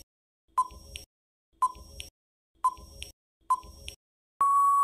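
Quiz countdown timer sound effect: four short beeps about a second apart, then a long steady beep near the end signalling that time is up.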